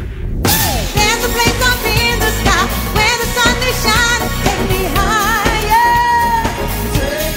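Live band playing an up-tempo dance-pop song, with vocals singing wavering, vibrato-laden notes over it. The longest held notes come about five to six seconds in.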